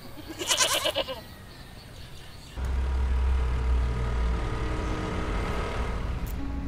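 A short, wavering bleat about half a second in. Then, suddenly, about two and a half seconds in, a steady low rumble of street traffic takes over.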